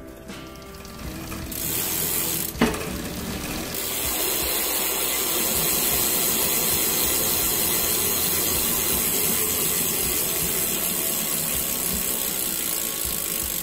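Shimano Deore FH-M618 rear hub freewheeling as the wheel spins fast: the freehub pawls make a dense, steady buzz. There is one sharp click about two and a half seconds in.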